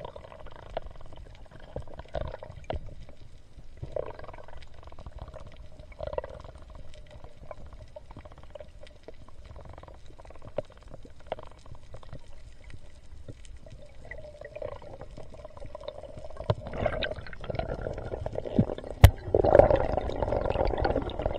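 Muffled underwater noise heard through an action camera's waterproof housing. A sharp knock comes near the end, followed by louder rushing water as the diver swims up toward the surface.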